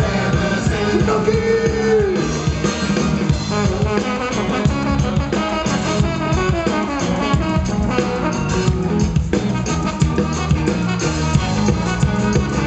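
Live band playing an upbeat ska-style instrumental passage over a PA, a trombone to the fore over electric guitars and a drum kit keeping a steady beat.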